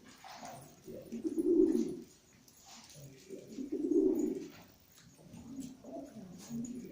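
Domestic pigeons cooing: two loud low coos about two and a half seconds apart, then softer ones near the end.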